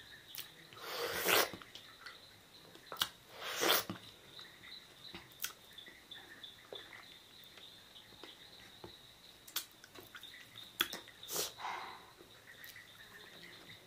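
Quiet eating sounds from someone eating small sohphie fruits: scattered soft clicks of chewing and handling, with three short breathy bursts about a second, three and a half seconds and eleven seconds in.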